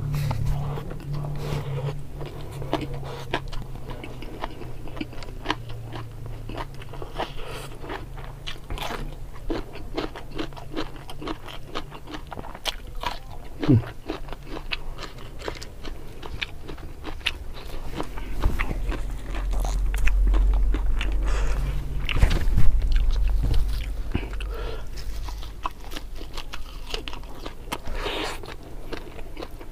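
Close-miked eating by hand: steady chewing and biting with many short wet clicks and crunches as rice, fried fish and raw vegetables are chewed. The sharpest crunches come about 14 and 23 seconds in.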